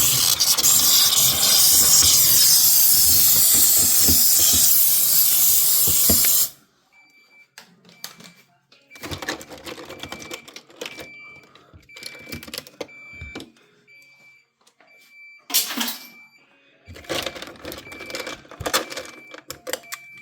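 Handheld steamer hissing steadily as it blows steam onto ice built up in a refrigerator's ice compartment; it cuts off suddenly about six seconds in. Then come irregular knocks and scrapes of ice being cleared out, with a short electronic beep repeating about once a second.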